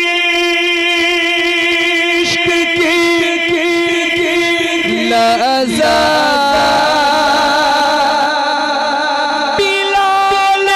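A man singing an Urdu naat into a handheld microphone, drawing out long held notes, with the melody climbing to a higher sustained note about halfway through.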